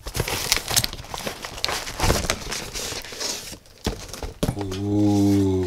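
Cardboard shipping carton being torn open and rustled by hand, crinkling and crackling with sharp snaps as the product box is pulled out. Near the end a man gives a short, steady low hum of about a second.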